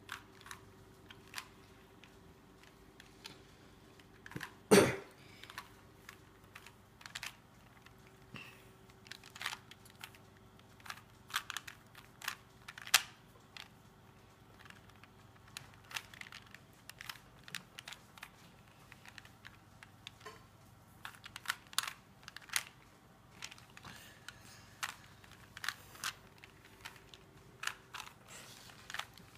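Rubik's cube being turned by hand: irregular plastic clicks and clacks as its layers rotate, with one much louder knock about five seconds in.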